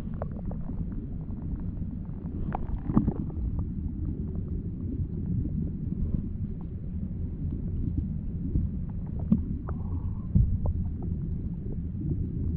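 Muffled low rumble of moving water recorded underwater, with many scattered small clicks and ticks and a few louder knocks, one about three seconds in and two near the ten-second mark.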